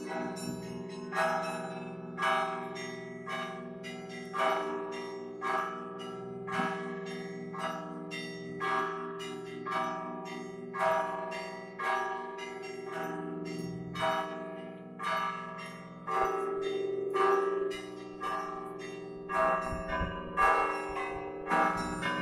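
Russian Orthodox church bells rung from a monastery belfry. Smaller bells are struck about twice a second over the steady hum of the larger bells, and the strikes come faster near the end.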